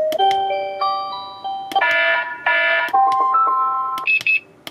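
Digital alarm clock's built-in alarm sounds played from its small speaker: short electronic melodies, cut off with a click and swapped for a different one every second or so as the sound selection is stepped through. A brief high beeping comes near the end.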